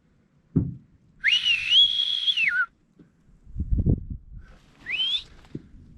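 A person whistling loudly to make a running buck stop for the shot: one long high whistle that rises, holds and drops, then a short rising whistle near the end, with a low rumble between them.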